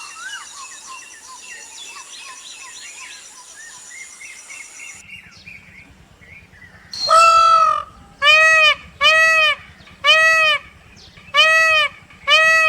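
Small birds chirping faintly for the first few seconds, then, about seven seconds in, a peacock calling loudly: a series of six honking calls, the first one longer and the rest short, about one a second.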